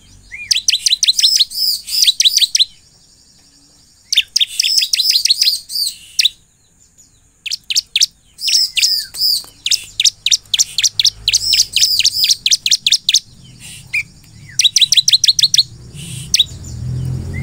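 Bar-winged prinia (ciblek) in full song: bouts of rapid, high, repeated chirping notes, each bout about two seconds long, with short pauses between them. It is the lively song keepers play as a lure to draw a response from other ciblek.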